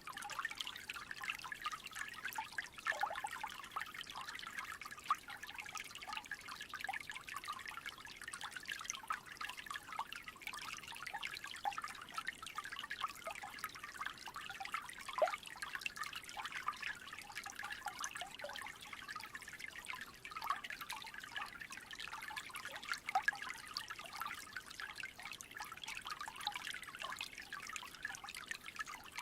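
Small creek trickling: a steady, dense babble of many little splashes and drips.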